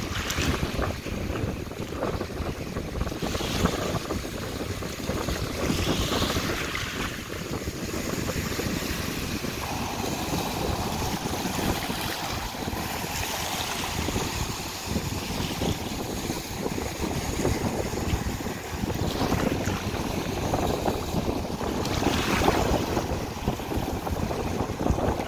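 Wind buffeting the microphone over the steady wash of small ocean waves, with surges of surf as waves break on a rock breakwater and wash across the sand several times.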